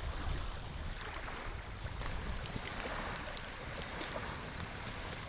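Wind buffeting the microphone over moving lake water, with a steady low rumble and faint scattered splashy ticks.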